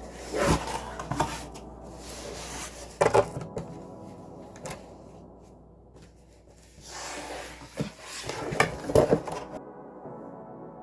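Handling noises: a few irregular knocks and scrapes with rustling, over faint background music.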